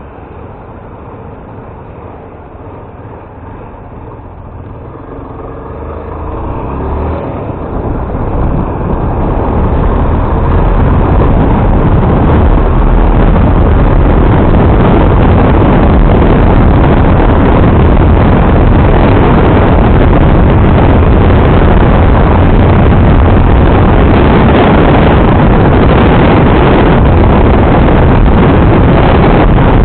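Motorcycle on the move, its engine mixed with wind rushing over the microphone. The noise builds over the first ten seconds or so as it picks up speed, then holds steady and loud.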